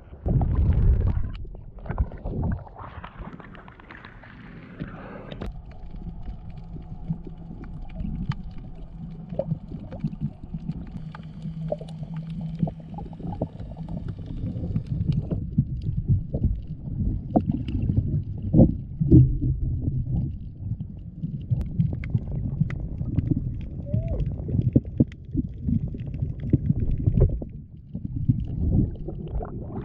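Water splashing as a snorkeler ducks under, then muffled underwater sound from a camera in a waterproof housing: a low rumble of moving water with scattered clicks and knocks.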